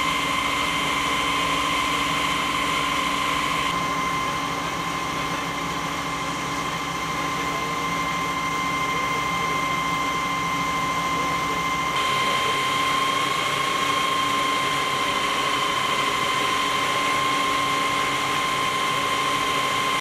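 A parked fire engine running with a steady high-pitched whine over a low hum.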